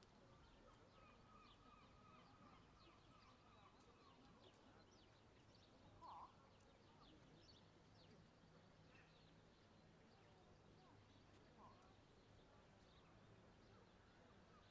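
Near silence with faint scattered small-bird chirps over a low steady hum, and one brief louder call about six seconds in.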